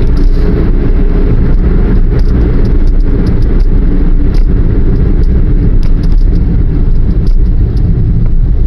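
Car driving, heard from inside the cabin: a loud, steady low rumble of road and engine noise, with a few faint scattered clicks.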